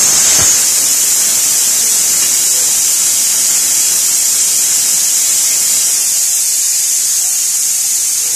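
A stovetop pressure cooker venting steam in a loud, steady hiss, its weight valve lifted by hand to release the pressure before the lid is opened. The hiss eases off slightly over the seconds.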